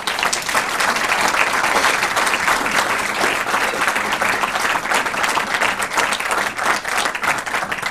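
An audience applauding, steady sustained clapping that starts abruptly and fades out near the end.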